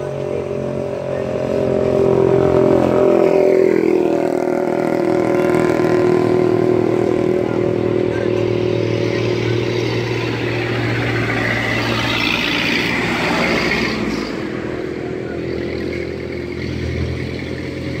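Road traffic passing close by: one vehicle's engine goes past about three seconds in, its pitch falling as it passes, and another vehicle rushes past near the middle, peaking at around twelve to thirteen seconds.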